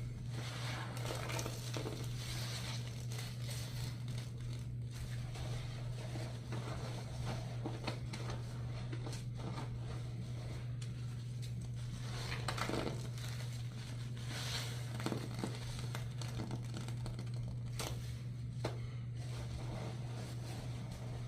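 A soaked sponge being squeezed and wrung by hand, a continuous run of uneven squishing and scrunching noises, over a steady low hum.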